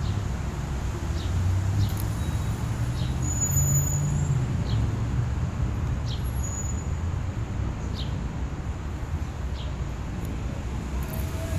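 Low, steady rumble of road traffic, with an engine note that rises and then falls about four seconds in as a vehicle goes by. A bird repeats a short, high, falling chirp roughly every second and a half.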